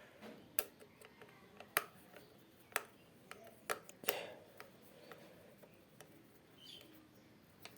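Sharp clicks and light knocks of wall-fan parts being handled as one part is detached, about one a second for the first four seconds, then fainter.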